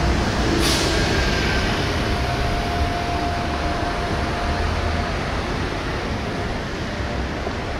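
City street traffic: a steady low rumble of vehicles on the road beside the sidewalk, easing off slowly, with a short hiss about a second in and a faint steady whine for a few seconds after it.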